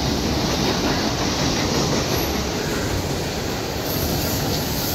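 Electric commuter train passing, a steady rumble of wheels on the rails.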